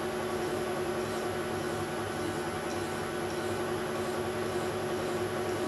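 1972 Weiler Matador lathe running with a steady hum while a flat hand file is stroked across the spinning workpiece, rounding off its sharp edges. Faint high ticks come about twice a second.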